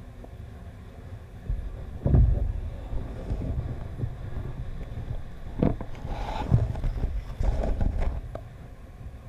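Muffled low rumble of a GoPro Hero3 in its waterproof housing underwater, growing louder about two seconds in, with several dull knocks and scrapes as the housing brushes through kelp.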